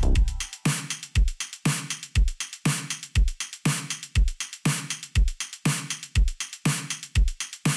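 Electronic background music: a drum-machine beat with a deep kick drum about twice a second and crisp hi-hat hits between the kicks. A fuller part with held bass notes drops out right at the start, leaving the bare beat.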